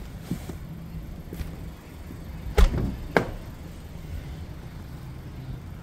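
Two sharp clunks of a car door, about half a second apart, a little past halfway through, over a low steady hum.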